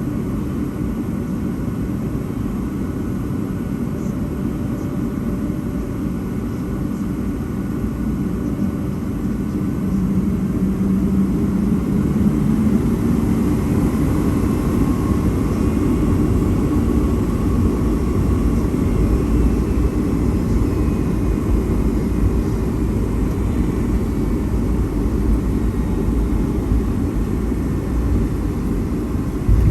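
Boeing 757-232 jet noise heard from inside the passenger cabin: a steady, loud low rumble of the Pratt & Whitney PW2000 engines and airflow. It grows louder about ten seconds in, with a faint whine over the rumble.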